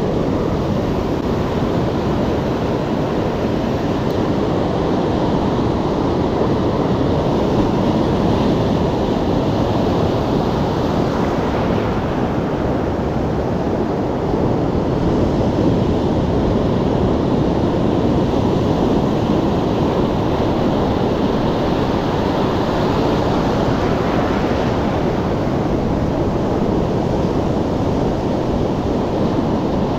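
Ocean surf washing onto the shore, a steady rush that swells a couple of times as waves break, with wind on the microphone.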